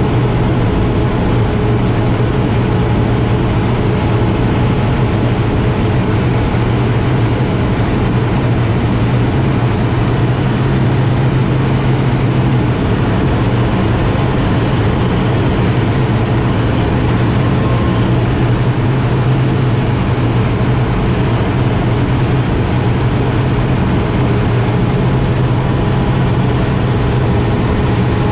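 Air Tractor 802 crop-spraying plane's Pratt & Whitney PT6A turboprop engine and propeller running steadily, heard inside the cockpit as a constant low drone with a few steady tones above it.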